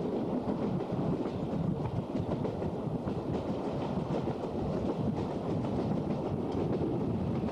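Passenger train running along the track, heard from inside the carriage: a steady low rumble of wheels on rails with faint rail clatter.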